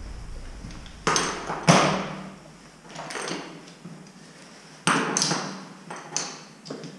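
Metal steering and suspension parts (steel rods and aluminium wishbones) clanking as they are handled and set down on a concrete floor: about half a dozen separate metallic clanks, each ringing briefly.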